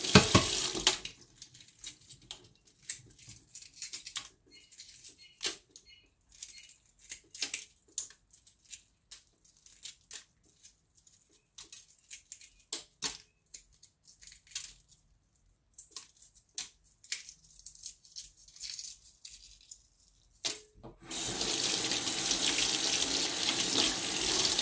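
Kitchen tap running into a stainless steel sink, shut off about a second in, then many small irregular crackles and clicks as the shell is cracked and peeled off a hard-boiled egg by hand. Near the end the tap runs again, water splashing into the sink as the peeled egg is rinsed.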